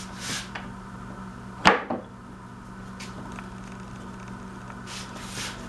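A pinned wooden block being fitted into drilled holes in a wooden extension: one sharp knock a little under two seconds in as it is set down, with soft scrapes of wood sliding on wood near the start and near the end, over a steady low hum.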